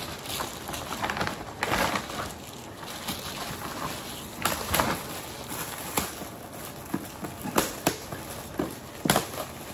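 Gift wrapping paper and packaging rustling and crinkling as a present is unwrapped, with irregular sharp crackles throughout.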